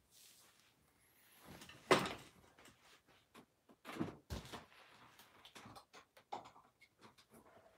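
Scattered faint knocks and clicks of someone moving about and handling things out of view, with a louder knock about two seconds in and another cluster around four seconds.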